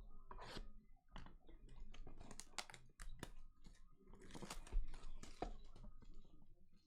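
Crinkling and tearing of packaging as a Mosaic basketball card mega box is unwrapped and opened: a dense run of short crackles and rips.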